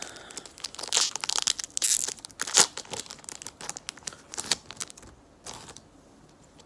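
Foil trading-card pack wrapper crinkling and tearing as the pack and its cards are handled: quick scratchy rustles that die away after about five and a half seconds.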